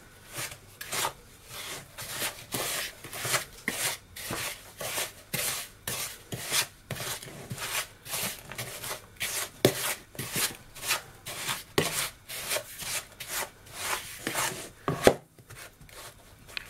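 Wooden spoon beating softened butter and caster sugar in a mixing bowl, creaming them together: a steady run of scraping, knocking strokes against the bowl, about two to three a second, stopping shortly before the end.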